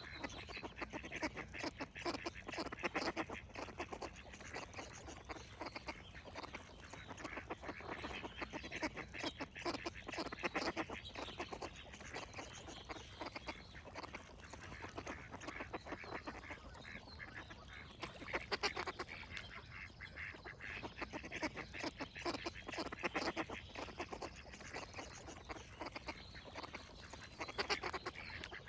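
Ducks quacking over and over, many short quacks in quick succession, with songbirds singing in the background.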